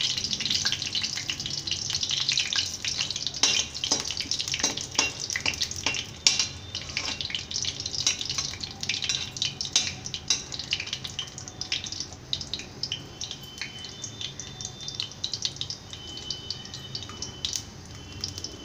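Hot oil sizzling and crackling in a steel kadhai as a dried red chilli and whole seeds fry in it, with a steel ladle clinking and scraping against the pan. The sizzle is loudest for the first six seconds or so, then dies down to scattered crackles.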